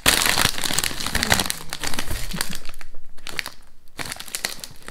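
A bag of Walkers Sensations crisps crinkling as it is handled, loudest in the first moment, with a short lull about three seconds in.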